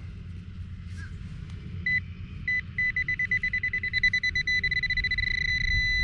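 Nokta AccuPoint pinpointer beeping, starting about two seconds in with a few separate beeps that quickly speed up and run together into a steady high tone near the end: the probe is right on a metal target in the dug hole.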